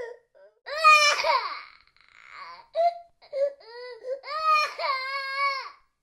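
Young child crying in wails and sobs: a loud wail about a second in, a breathy gasp, a few short sobbing cries, then a long, steady wail near the end.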